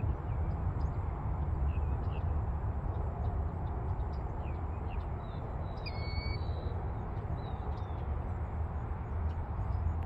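Wild birds giving short, scattered chirps and whistles, several together about six seconds in, over a steady low rumble.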